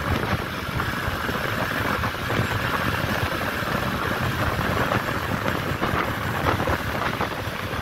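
Motorbike engine running steadily while riding along a road, with wind rushing over the microphone.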